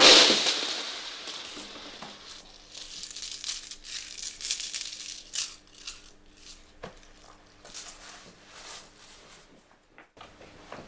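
Cardboard box flaps shutting with a loud thud at the start, followed by several seconds of crinkling and rustling, over a faint steady hum.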